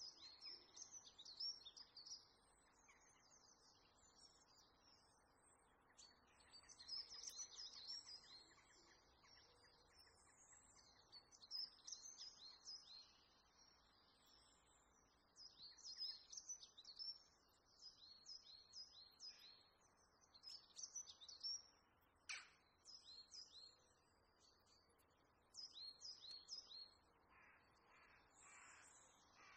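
Faint birdsong: bursts of quick, high chirping calls, coming in groups every few seconds, with three lower calls near the end.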